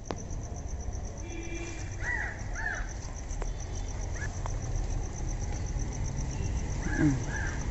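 A crow cawing in short calls, a pair about two seconds in and a few more near the end, over a steady high-pitched insect trill.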